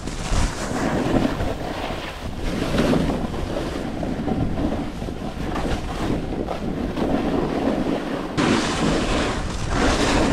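Wind rushing over the camera microphone as a snowboard slides and scrapes over warm, chopped-up snow at speed. The hiss of the board's edge grows louder and brighter for about a second near the end.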